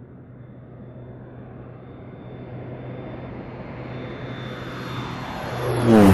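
Air Tractor AT-502 crop duster's turboprop engine and propeller in a flyby, with a steady high whine over the hum. It grows steadily louder to a loud peak near the end as it passes close, and the pitch drops sharply as it goes by.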